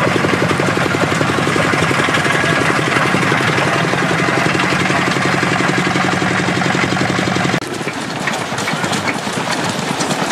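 1924 Foden C Type steam wagon's two-cylinder compound steam engine running as the truck drives slowly, a rapid, even mechanical beat. It dips briefly about three-quarters through and carries on a little quieter.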